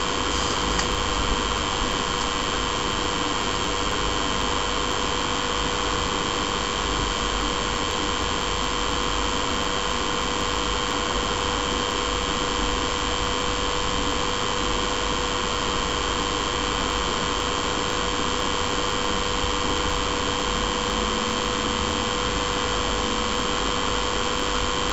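Desktop computer's SMPS (power supply) running: a steady fan whir with several steady high whining tones over it.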